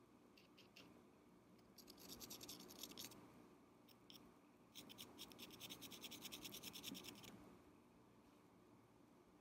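Metal rod scraping against the inside wall of a glass candle jar, in two runs of rapid ticking of a second to a few seconds each, with a few single light taps before and between them.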